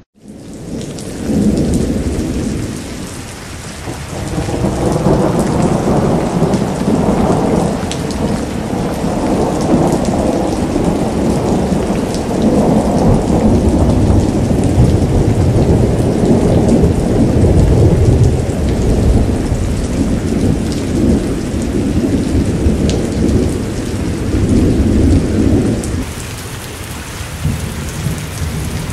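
Thunderstorm: long rolling thunder rumbling and swelling several times over steady heavy rain. A few seconds before the end the rumble dies away, leaving the rain alone.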